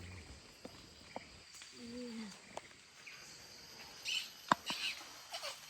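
Faint rainforest ambience with a thin insect buzz, broken by a few sharp clicks and crackles. The loudest click comes about four and a half seconds in, amid short crackly bursts. A brief low hum comes about two seconds in.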